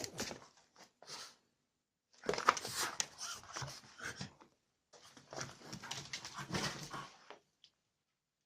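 French bulldog growling and grumbling in anger, in two long bouts of about two seconds each after a few short sounds.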